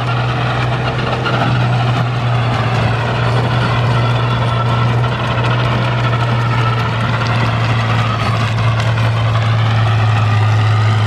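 Fiat 1000 DT tractor's six-cylinder diesel engine running steadily as the tractor pulls a tillage implement through the soil.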